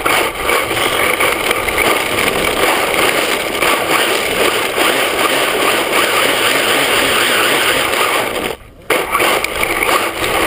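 Onboard sound of an HPI Mini Trophy RC truck with a Traxxas VXL-3s brushless system driving fast over rough asphalt: a loud, steady rush of tyre and drivetrain noise. It cuts out briefly about eight and a half seconds in, then comes back in a short burst.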